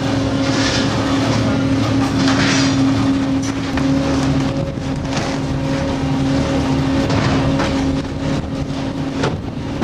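Steady drone of a fishing boat's machinery, a low hum with one constant pitched tone, with a few knocks from wooden fish crates being lowered into the hold.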